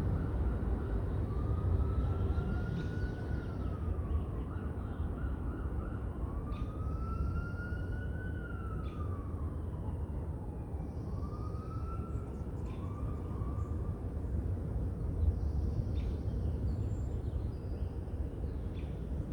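Distant emergency-vehicle siren wailing, its pitch slowly rising and falling several times, over a steady low rumble of city noise and wind.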